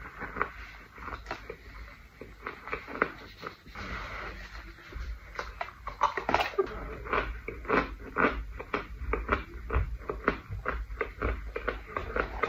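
Close-up crunching and chewing of a pressed powder brick: a dense run of short, dry crackling clicks as the chunk is bitten and ground between the teeth.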